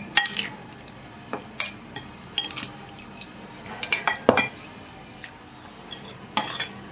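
Metal spoon scraping and clinking against a bowl and a glass jar as grated olive pickle is spooned into the jar, about ten irregular sharp clinks.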